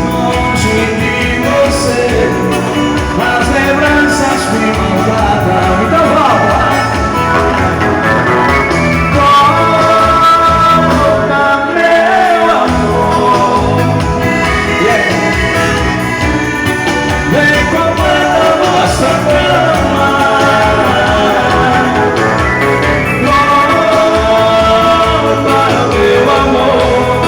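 Live band playing dance music with a steady beat and a melodic lead over it; the bass and drums drop out briefly about halfway through.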